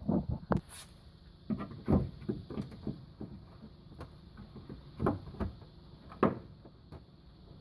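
Irregular knocks, clunks and taps of hand work, the loudest about two, five and six seconds in, with a brief hiss less than a second in.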